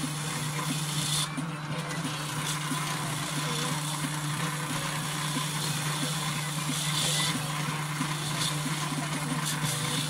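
An electric power tool runs steadily with an abrasive cleaning disc, working down the face of a Suzuki FZ50 restoration part. Its steady motor hum has a brief scratchier spell about seven seconds in.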